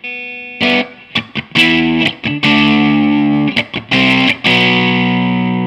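Electric guitar played through a Crate Vintage Club 50 tube combo amp on its gain channel, giving distorted chords. It plays a few short choppy stabs and a sustained chord, then strikes a long chord about four and a half seconds in and lets it ring out slowly.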